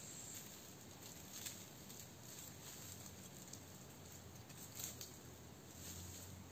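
Faint footsteps: a few soft, scattered taps over a low background hiss.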